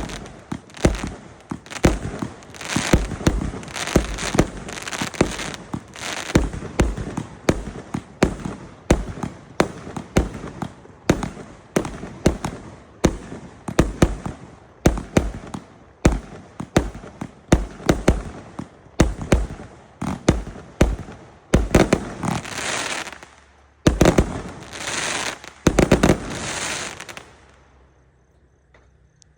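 Triumph 168-shot fireworks cake firing a rapid run of shots, about two bangs a second, with crackling between them. Near the end the crackle bursts grow heavier in a finale, then the firing stops.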